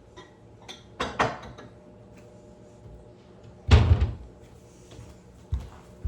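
Dishes clattering about a second in as bowls are put away on a shelf, then a kitchen cabinet door shutting with a thud, followed by a couple of lighter knocks near the end.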